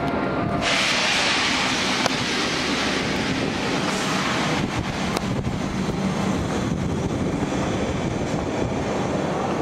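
Train noise on a railway station platform: a loud rushing hiss starts suddenly about half a second in and eases after about four seconds, over a steady low din.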